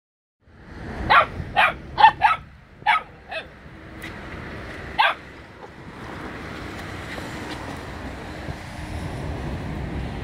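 Puppy barking in short, sharp yaps: six in quick succession over the first few seconds and one more about five seconds in, then steady background noise.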